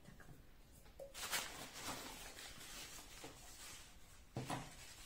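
Tissue paper rustling softly as it is handled and pressed onto a glued tin can, coming and going, with one short louder handling sound about four and a half seconds in.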